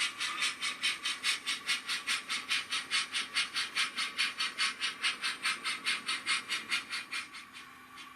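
Sound decoder in a Rapido OO-gauge model of the locomotive Lion, playing steam-exhaust chuffs through its small speaker at about five beats a second. The chuffs die away about seven seconds in.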